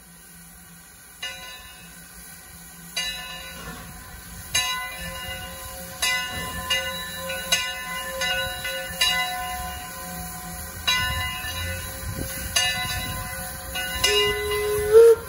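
Brass bell on the Eureka & Palisade No. 4, a 4-4-0 steam locomotive, rung stroke by stroke, slowly at first and then about once a second, each stroke ringing on. Near the end comes a short steam whistle toot, the loudest sound, rising slightly in pitch as it stops.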